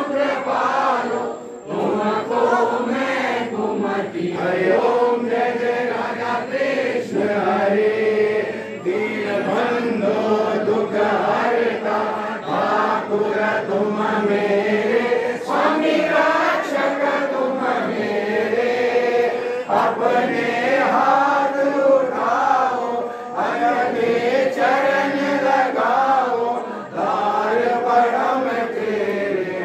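Crowd of Hindu devotees chanting a Ganesha aarti together in unison, in continuous sung phrases that rise and fall.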